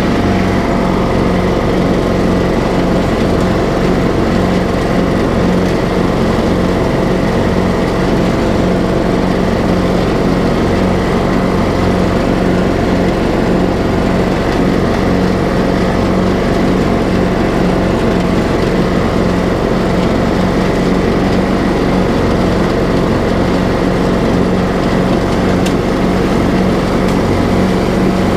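TroyBilt riding lawn mower engine running steadily under load while the mower drives and cuts grass.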